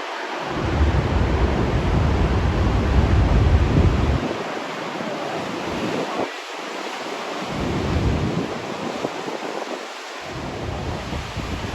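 Heavy ocean surf of big Atlantic waves crashing and rushing, a steady roar of noise. Wind buffets the microphone in gusts, its low rumble dropping out and returning several times.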